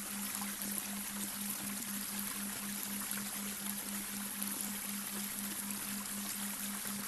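Babbling brook running steadily. Under it is a low electronic hum that pulses about three times a second: the delta binaural-beat tone.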